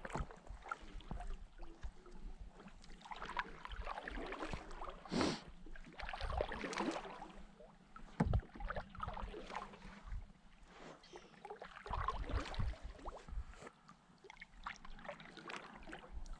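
Irregular small knocks, clicks and splashes of water and fishing gear around a kayak.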